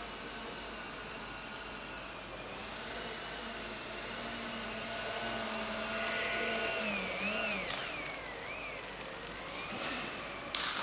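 Electric drive of an indoor RC model Airbus A310 whining steadily as the model lands and rolls along the floor; about two-thirds of the way through its pitch rises and wavers up and down. A sudden burst of noise comes near the end.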